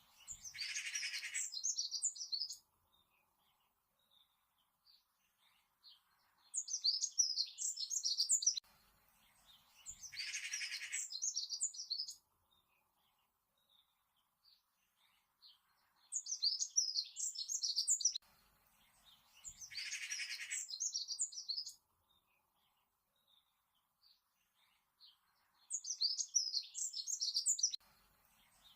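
A songbird singing in short phrases of rapid high chirps, about six phrases separated by pauses of a second or more. Every other phrase opens with a lower buzzy trill under the chirps.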